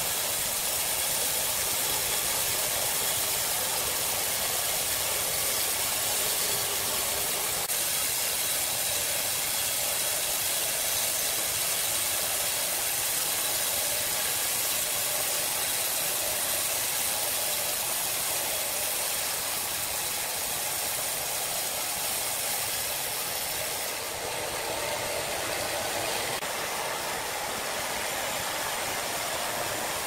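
Large horizontal band sawmill running and sawing lengthwise through a big hardwood log: a steady hissing rasp of the blade in the wood over the hum of the machine. Near the end the high hiss eases a little.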